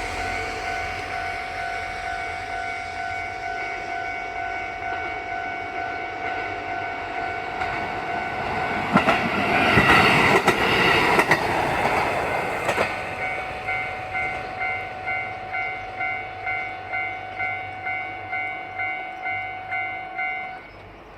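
A railway level-crossing alarm bell rings in steady electronic 'kan-kan' tones. A train passes over the crossing from about nine to thirteen seconds in, its wheels clattering over the rail joints. The bell then keeps ringing at about two strokes a second and stops shortly before the end.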